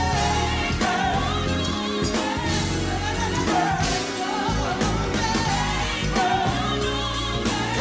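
Gospel music with singing over a band.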